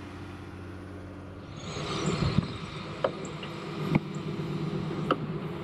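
A low steady hum, then about a second and a half in a crane's engine comes in running steadily, with a few sharp knocks about a second apart.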